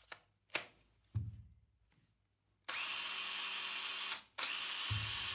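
A few light plastic clicks as the 18V BL1830 lithium battery is fitted to a Makita cordless drill. Then, about two and a half seconds in, the drill's motor runs at speed, stops for an instant and runs again, powered by the repaired battery.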